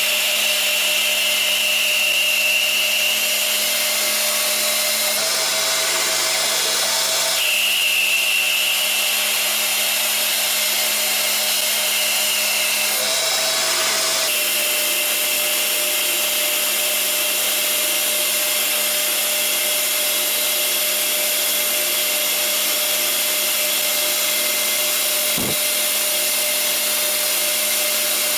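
CNC lathe turning a metal bar: a steady machine whir with a hiss of cutting. A higher whine comes in twice for a few seconds as the tool feeds along the bar.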